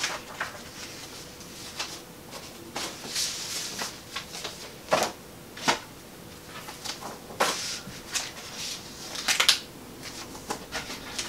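Sheets of paper being leafed through and shuffled by hand: a run of irregular rustles and page flips, with a few sharper paper crackles in the middle and later part.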